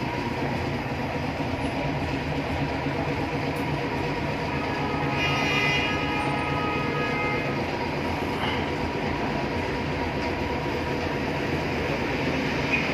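Old Alexandria tram car standing at its stop, a steady rumble and hum. About five seconds in, a high steady tone sounds for about two seconds.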